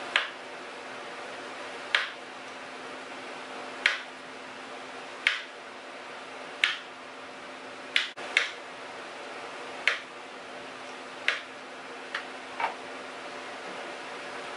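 A kitchen knife clicking against a granite countertop as a peeled banana is cut into pieces: about a dozen sharp clicks, one every second or two, with two pairs close together.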